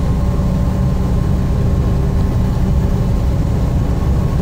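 Steady engine and road rumble of a vehicle driving at highway speed, heard from inside its cab.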